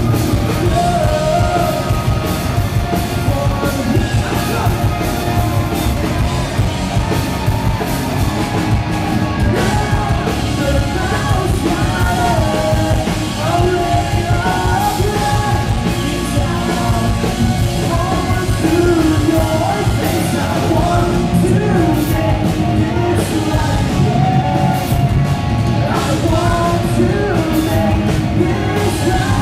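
Live rock band playing: a singer sings and yells into a microphone over electric guitars and the rest of the band, loud and steady throughout.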